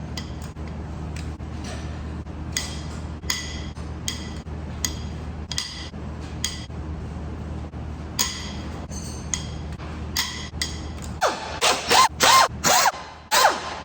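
Hand tools clinking on metal every second or so while head bolts are loosened on a Jeep 4.0 straight-six, over a steady low hum. About eleven seconds in, a power tool starts running in short loud bursts, its pitch rising in each one.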